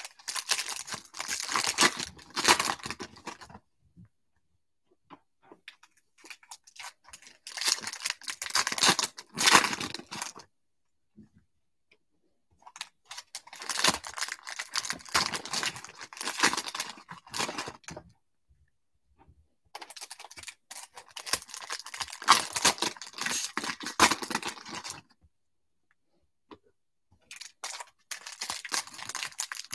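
Foil wrappers of Topps Stadium Club baseball card packs crinkling and tearing as packs are opened by hand, in five bursts of a few seconds each with short pauses between.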